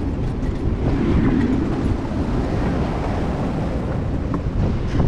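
Wind buffeting the microphone on a ship's open deck, a steady low rumble of noise.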